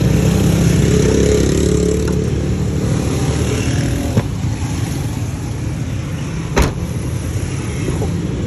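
Rear hatch of a Toyota Aqua hatchback shut with one sharp thump about two-thirds of the way in, after a lighter click a little past halfway, over a steady low vehicle rumble.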